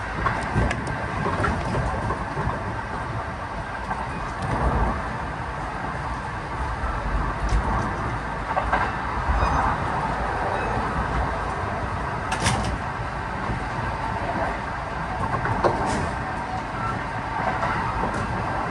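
Running noise inside a Kintetsu 1620-series electric train at speed: a steady rumble and rush of wheels on rail. A few sharp clicks stand out through it, the loudest about two-thirds of the way in.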